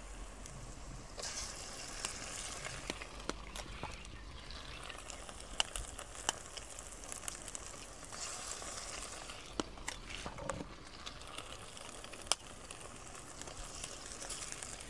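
Tomato and onion masala sizzling steadily in a kadai over a wood fire, with scattered sharp clicks.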